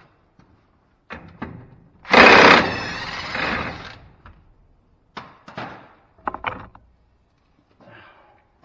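Cordless impact wrench hammering the nut off a worn truck tie rod end, a burst of about two seconds that is loudest at the start, after a couple of short blips. A few short metal clanks follow.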